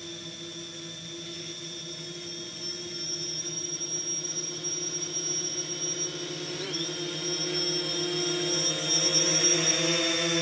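DJI Phantom 3 quadcopter's propellers whining steadily as it flies in toward the microphone, growing louder throughout, with a brief dip and rise in pitch about two-thirds of the way through.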